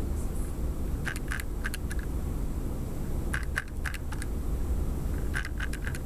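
Short runs of small sharp clicks, two to four at a time, about a second in, in the middle and near the end, over a steady low hum.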